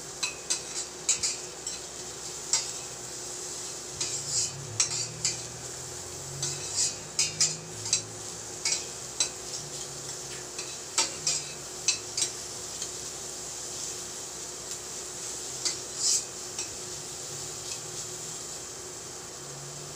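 Onions and garlic sautéing in oil in a stainless steel saucepan, with a utensil scraping and clinking against the pan as they are stirred, over a faint steady sizzle. The scrapes come irregularly and thin out after about sixteen seconds.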